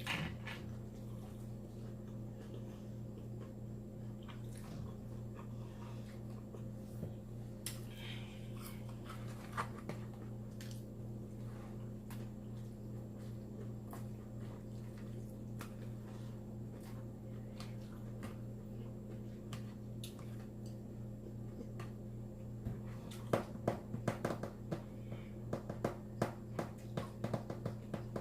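Close-miked chewing of salad: scattered wet mouth clicks and squishes, then a dense run of chewing clicks in the last few seconds. A steady low hum lies underneath.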